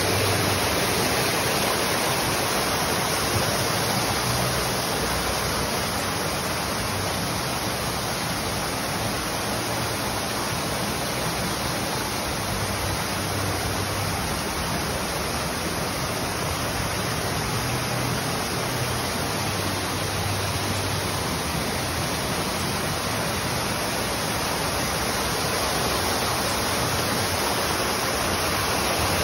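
Artificial waterfall: thin streams of water pouring down a rock wall and splashing steadily into a shallow pool.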